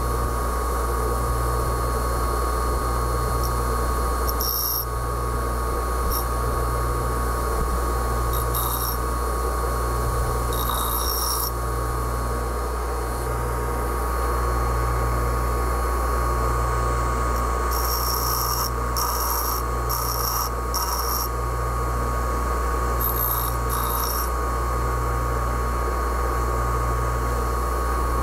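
Bench grinder motor running with a steady hum, while a hardened O1 tool steel blank is touched to the wheel in short grinding passes, several brief scraping bursts with a quick cluster about two-thirds of the way through, to grind a radius on a boring bar's cutting tip.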